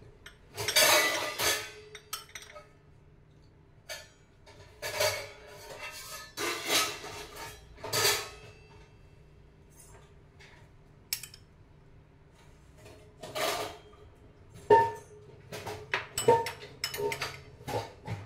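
A metal spoon scraping and tapping against a glass bowl as chopped vegetables are tipped in, several short scrapes followed by a run of sharp clinks near the end.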